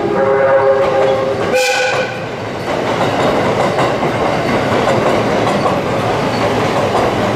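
A limited express train's music horn plays the last notes of its melody. About a second and a half in, it gives a short blast of its horn. Then a train runs past, its wheels clattering on the rails.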